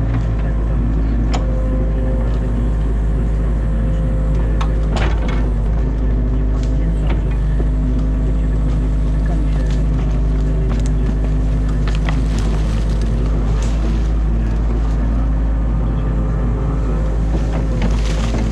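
Excavator's diesel engine running steadily, heard from inside the cab, with scattered sharp cracks of branches snapping as the bucket pulls apart a beaver dam.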